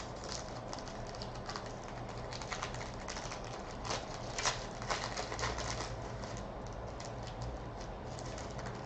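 Foil trading-card pack being torn open and crinkled by hand: a run of small crackling clicks, thickest around the middle.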